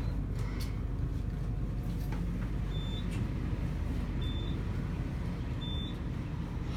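Payne overhead-drive traction elevator car travelling down, a steady low rumble and hum heard inside the cab. From about three seconds in, a short high beep sounds about every second and a half.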